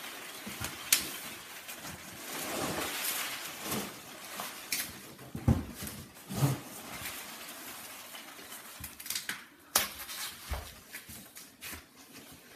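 Foam packing peanuts rustling and pattering as they are poured out of a cardboard box, with bubble wrap crinkling and a few sharp knocks as a long bubble-wrapped rifle is pulled out and laid down.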